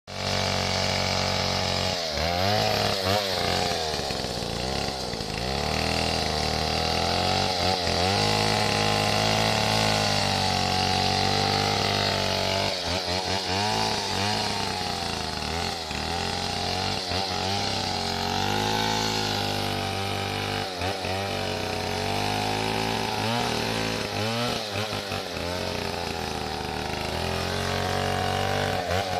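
Stihl 070 two-stroke chainsaw running, its engine speed rising and falling over and over as the throttle is worked.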